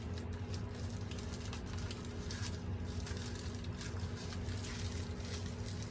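Faint, irregular crinkling and small ticks of sticky tape and plastic bubble wrap being picked at and peeled off a package, over a steady low hum.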